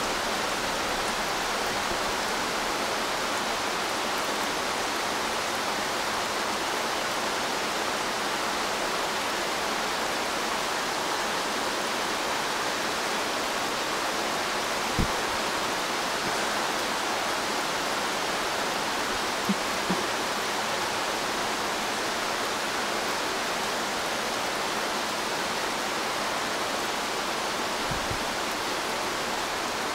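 Steady rain falling on the forest leaves, an even hiss. A few sharp ticks stand out about halfway through and near the end.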